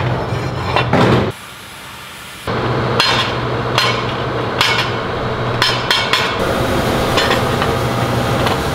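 Sharp metal knocks and clanks of quarter-inch steel plate surround halves being handled, set down on a steel bench and fitted against a transmission's bell housing, irregularly spaced over a steady low hum.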